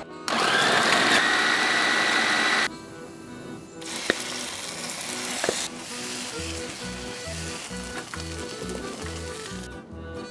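A Bosch food processor's motor spins up and runs for about two seconds, grinding a chilli, shallot and lemongrass spice paste, and cuts off. Then oil sizzles in a frying pan, and accordion background music with a steady beat takes over near the end.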